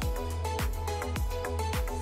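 Background music with a steady beat: a deep kick drum about twice a second under held chords and light ticking percussion.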